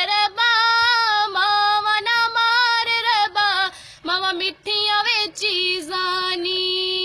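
A schoolgirl singing a Punjabi song solo, unaccompanied, in long held notes with ornamented turns between them, and a short breath pause about four seconds in.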